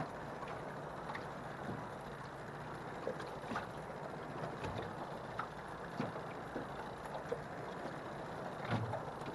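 Water lapping and sloshing against a small aluminium jon boat's hull, with a few faint clicks as a reel handle is being screwed onto a fishing reel.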